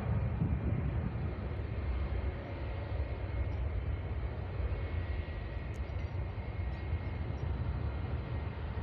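Distant jet airliner engines: a steady low rumble with a faint high whine. The rumble eases off slightly after the first couple of seconds.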